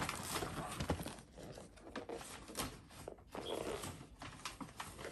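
Paper gift bag and wrapping rustling and crinkling as hands rummage inside, in quick irregular crackles.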